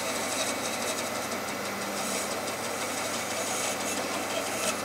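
Record Power Sabre 350 bandsaw running with a thin 3 mm blade, cutting into a glued block of maple and plum wood: a steady motor hum under the even noise of the blade in the wood.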